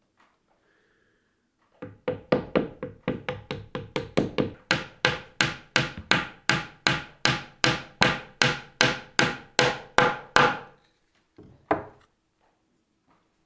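A wooden mallet drives a wooden dowel into a drilled hole in a timber beam, in a steady run of about thirty blows. The blows come quickly at first and then settle to about three a second, and two lighter knocks follow near the end.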